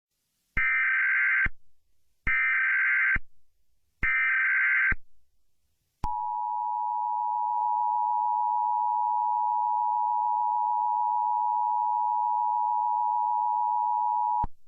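Emergency Alert System SAME header: three bursts of warbling data tones, about a second each, signalling the start of an alert. They are followed by the EAS two-tone attention signal, a steady dual tone held for about eight seconds that cuts off just before the end.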